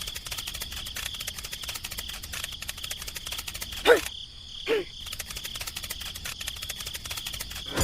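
Fast, continuous insect chirring like crickets. It breaks off about four seconds in for two short, loud calls that fall in pitch, then resumes.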